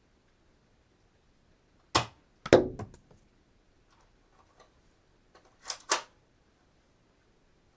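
Dart gun being cocked and fired: a sharp click, then half a second later the loudest shot with a short ring, a few faint clicks, and two quick clicks a little over five seconds in.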